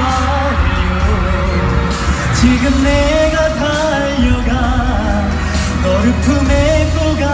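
A male singer sings a pop song live into a handheld microphone over a backing track, heard through a concert hall's sound system.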